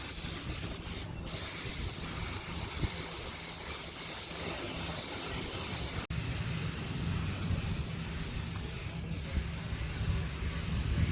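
Compressed air hissing steadily from a hand-held air gun, with two short breaks where the trigger is let go, about a second in and near the end. A low rumble runs underneath.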